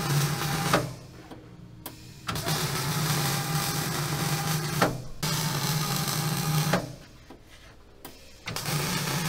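MIG welding arc from a WIA Weldmatic Fabricator welder at about 166 amps, crackling and buzzing steadily. The arc stops for about a second and a half twice, about a second in and again near the end, with a very short break in the middle.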